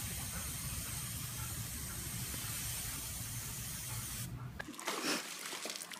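Garden hose spray nozzle hissing steadily as its jet of water sprays out, over a low rumble. The hiss stops suddenly a little past four seconds in.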